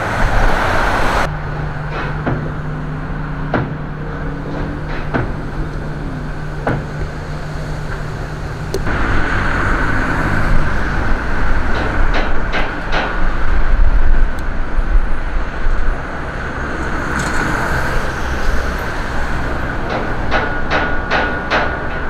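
Street traffic on a busy city road: cars and a pickup passing, with a steady low hum for the first ten seconds or so and scattered sharp knocks. The sound shifts abruptly about a second in and again near nine seconds.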